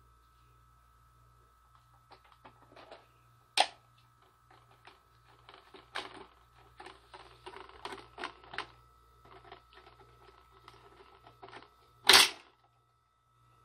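Light plastic clicks and taps as a cat paws at the fish in a children's fishing-game toy, over the faint steady hum of the toy's motor turning the pool. One loud, brief clack near the end as a finger presses one of the toy's piano keys.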